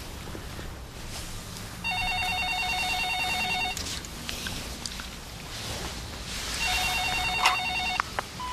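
Telephone ringing with an electronic trilling ring: two rings of about two seconds each inside, the second near the end, followed by a click.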